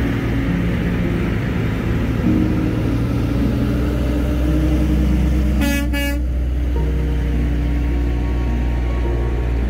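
Diesel engines of semi-truck tractors running as the trucks pass one after another, a steady low drone. About six seconds in, a horn gives two short toots.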